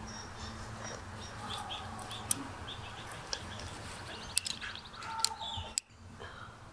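Birds chirping and calling, short notes over a low outdoor background, with a few sharp light clicks in the second half.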